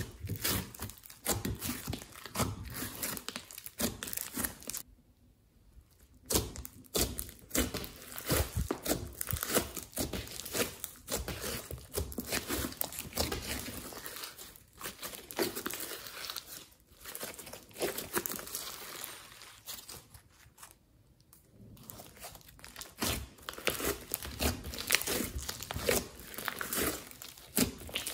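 Glossy slime mixed with clay and glitter being squeezed, stretched and pressed by hand, giving dense sticky crackling and popping. The handling stops twice for about a second.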